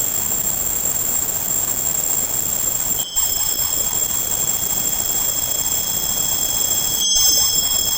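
Tinnitus-masking sound: a steady hiss of noise with several thin, high, steady tones above it. It cuts out for a split second about three seconds in and again about seven seconds in, repeating every four seconds like a loop.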